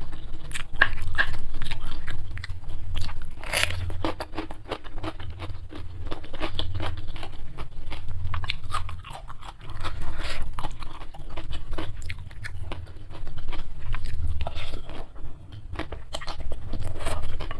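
Close-miked eating: a person biting and chewing crunchy food, with dense sharp crunches that come in bouts.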